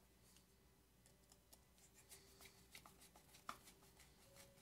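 Faint scattered clicks and light scraping of handling, with one sharper click about three and a half seconds in: a small screwdriver working at a screw in the base of a nebulizing diffuser.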